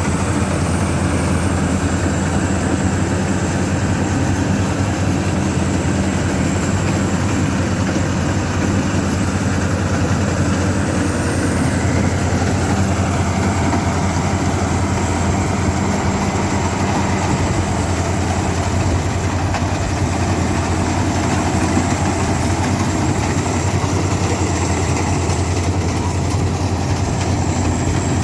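Heavy engine running steadily at a constant speed, with a thin high whine over it.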